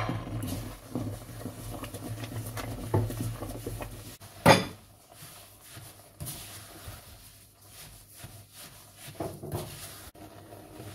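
Wooden spoon stirring wet poppy seeds and milk in a stainless steel pot: soft scraping strokes and light knocks against the pot. One sharp knock comes about four and a half seconds in, where a low hum under the first part stops.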